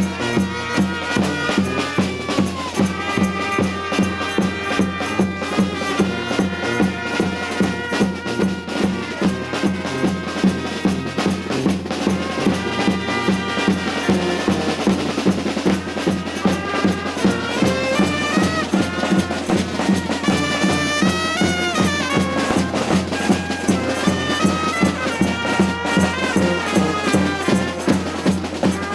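Traditional dance music: a melody over a steady drone, with a regular beat about twice a second.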